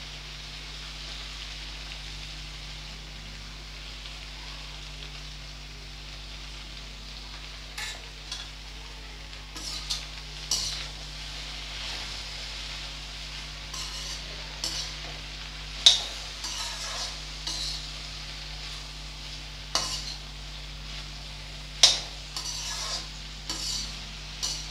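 Okra frying in hot mustard oil in an iron kadhai, sizzling steadily. From about eight seconds in, a metal slotted spoon scrapes and clinks against the pan as the okra is stirred, with two sharp knocks louder than the rest.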